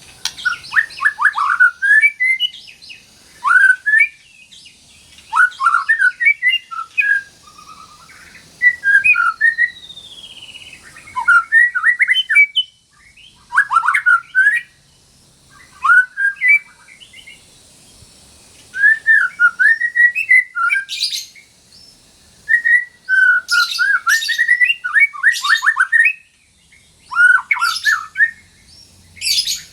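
White-rumped shama singing: short, varied phrases of quick whistled and chattering notes, one every second or two, with a long falling whistle about a third of the way through and harsh, rasping notes mixed in later on.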